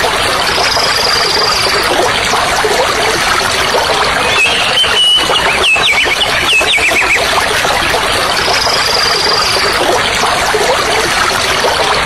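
Steady rush of a stream running over rocks, with birds calling over it: a high held whistle near the start and again about two-thirds through, and a run of chirping, sliding calls in the middle.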